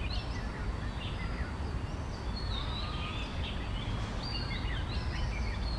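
Outdoor ambience of several birds singing and chirping in short warbling phrases, over a steady low rumble.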